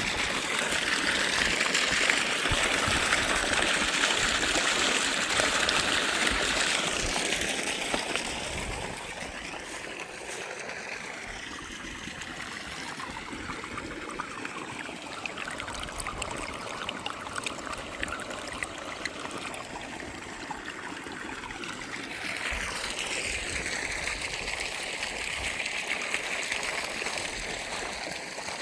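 Water steadily trickling and splashing at a small duck pond, louder for the first several seconds, dropping back, then louder again near the end.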